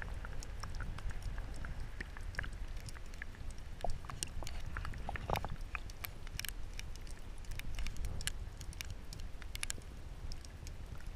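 Sound picked up with the camera held underwater in shallow river water: a steady muffled low rumble of moving water, with many scattered sharp clicks and crackles throughout.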